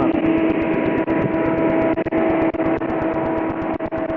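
Vehicle running at speed: a steady drone of engine and road noise with an unchanging pitched hum, broken by a rapid, even flicker.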